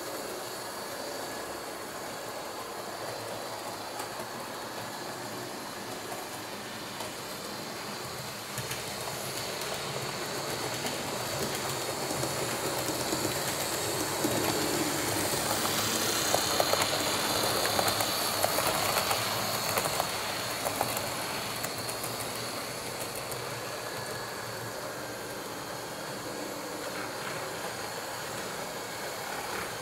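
Model electric trains running on layout track: a steady whir and rattle of motors and wheels on the rails, getting louder in the middle as a train passes close, with light clicks over the rail joints.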